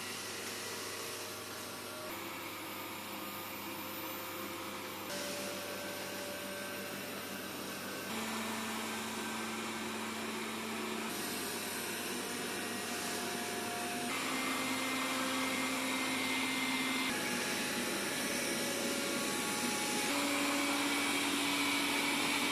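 Robot vacuum cleaner running with a steady whir and hum. Its faint tones shift and its level steps up every few seconds, growing louder overall.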